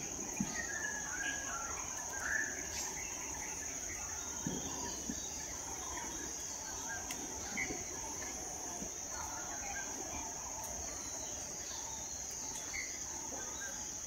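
Forest ambience: a steady, high-pitched insect drone of cicadas or crickets, with scattered short bird chirps and calls over it.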